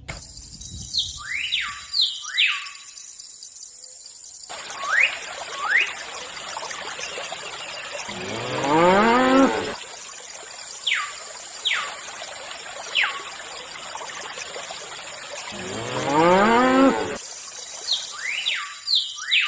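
A cow mooing twice, each call about a second and a half long, with short falling chirps scattered around the calls.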